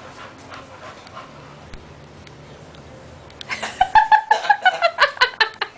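A puppy playing, giving a rapid run of short high-pitched yips, about five a second, starting a little past halfway. Before that there are only faint scattered clicks.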